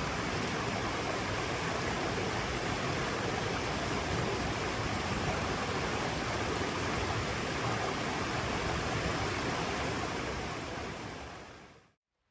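Rushing mountain stream: a steady, even noise of flowing water that fades out near the end.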